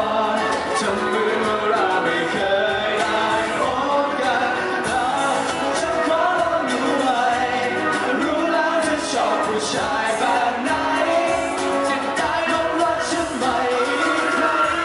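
Male voices singing a Thai pop song live into microphones over a strummed acoustic guitar.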